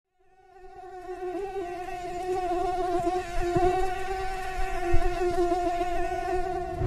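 Mosquito whining in flight: one steady buzzing tone that wavers slightly, fading in and growing louder as if it comes closer.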